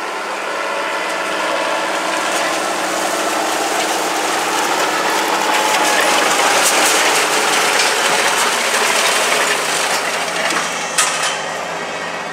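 A Kinze 2300 planter's row units and drive clattering as it passes close while planting no-till soybeans, over the steady running of the International 3588 2+2's six-cylinder diesel. The clatter builds to its loudest about six to eight seconds in, with a few sharp clicks near the end.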